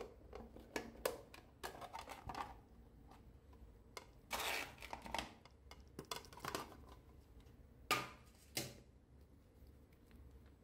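Hands handling plastic containers and tools: a string of light clicks and taps, with a longer rustle about four seconds in and two sharp ticks near the end.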